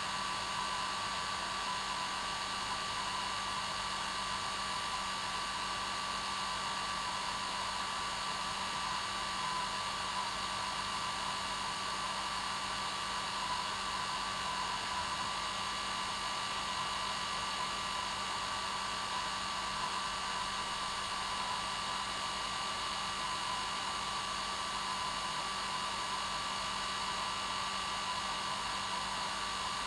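Hair dryer running steadily on one setting: an even whoosh of air with a constant motor whine.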